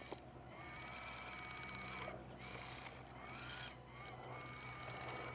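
Small electric motor and gears of an Axial SCX24 micro RC rock crawler whining faintly in throttle bursts of about a second each, the pitch rising at the start of each burst and then holding.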